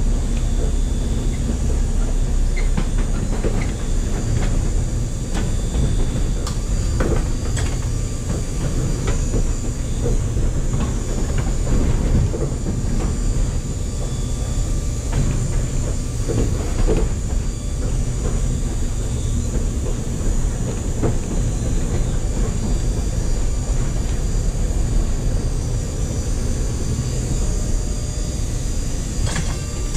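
Streetcar running along the track, heard from inside the car: a steady low rumble, with scattered clicks and knocks from the wheels on the rails.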